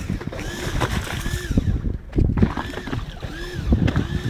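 Fishing reel being cranked hard against a heavy fish: a whine that rises and falls with each turn of the handle, repeating about once or twice a second, with knocks of handling and a low rumble.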